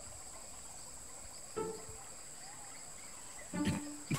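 Steady high-pitched chirring of insects such as crickets in a jungle ambience, with two short pitched calls, a faint one about one and a half seconds in and a louder one near the end.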